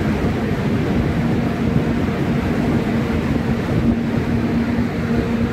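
Passenger train running through a tunnel: a loud, steady rumble of wheels on rail with a steady hum running under it.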